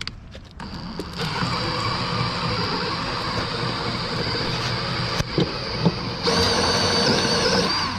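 Stripmeister wire stripping machine running as wire is fed through it: a steady mechanical whine with rattling, then a few knocks, and a louder, wavering whine from a little after six seconds in. The sound cuts off near the end.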